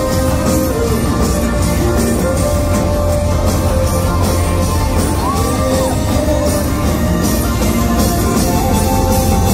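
Live pop-rock band playing with a lead singer holding long sustained notes, one of them higher about five seconds in, loud and dense as heard from within the crowd.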